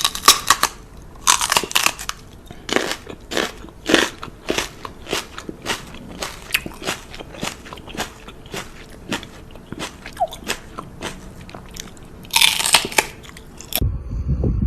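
A dog chewing something hard and crunchy, with irregular crisp crunches, a few louder bites among them, that stop abruptly near the end.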